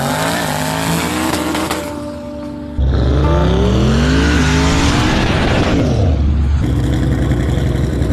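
Pickup truck engines revving hard, the pitch climbing and falling in repeated sweeps, with an abrupt jump to a louder, deeper run about three seconds in.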